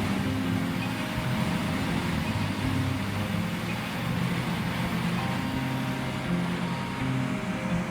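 Large drum wood chipper running with a steady, heavy engine drone.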